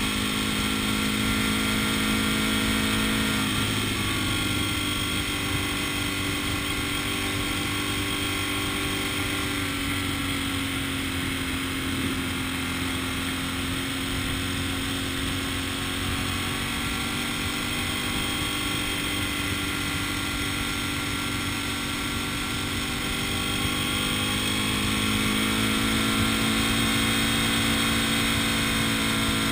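A road vehicle's engine running along with road noise while driving. The engine note drops about three seconds in as it eases off, then climbs again near the end as it speeds up.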